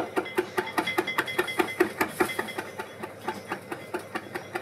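A wide-bladed kitchen knife chopping fresh thyme fine on a wooden cutting board: quick, even knocks of the blade on the board, about five a second.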